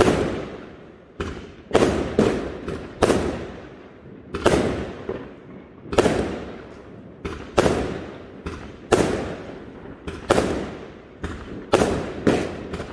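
Aerial fireworks bursting overhead, with sharp bangs about one every second or so, each trailing off in echo.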